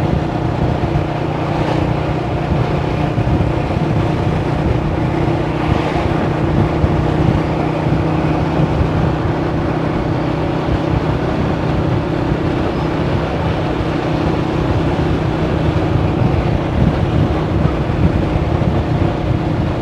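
Small motorcycle engine running with a steady, even note while riding, with wind noise on the microphone.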